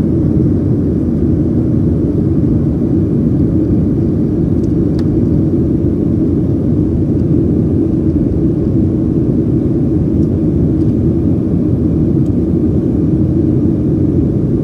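Steady low rumble of an airliner's jet engines and rushing air, heard inside the passenger cabin after takeoff.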